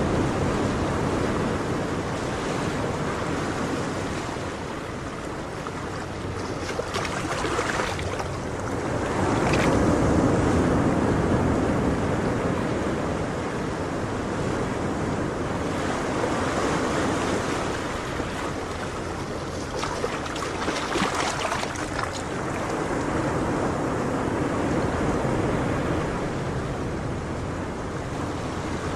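Ocean waves washing on a shore: a steady rushing surf that swells and ebbs every few seconds.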